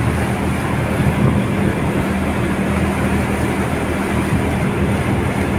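A small boat's engine running steadily with a constant low hum, mixed with wind and water noise.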